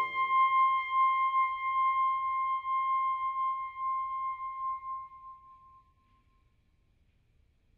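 The lower voices of a woodwind quintet's final chord stop, leaving one high woodwind note held alone. The note fades away and dies out about six seconds in.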